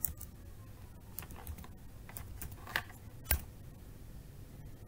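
Typing on a computer keyboard: irregular, spaced-out keystroke clicks, with one louder key a little over three seconds in.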